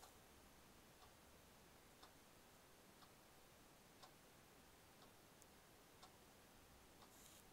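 Near silence: room tone with a faint, regular tick about once a second, and a brief soft hiss near the end.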